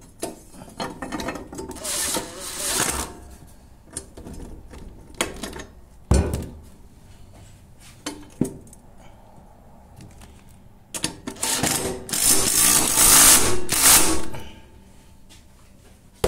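Makita cordless impact tool hammering a lawn mower's blade bolt tight. Two short runs in the first three seconds, a couple of single knocks in the middle, then a longer, louder run near the end.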